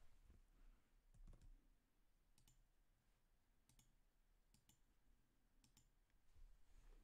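Faint computer mouse clicks, about four of them a second or so apart, over a low hum in near silence.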